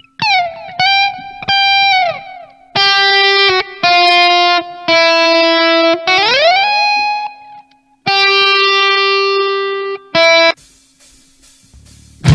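Lone electric guitar through effects, playing sustained single notes and slides in short phrases separated by brief pauses, with a long upward slide about six seconds in. Near the end a hissy swell rises, leading into the band's entry.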